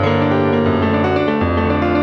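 Piano playing the instrumental introduction of a song: sustained chords over a bass note that changes about one and a half seconds in.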